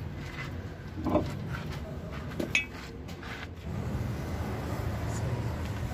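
A few short metallic clinks and knocks of steel parts being handled, one ringing briefly, over a steady low rumble that grows louder about two-thirds of the way in.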